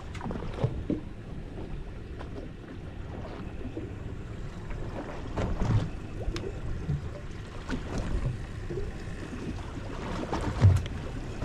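Water lapping against the hull of a drifting fishing boat, with scattered light knocks and thumps.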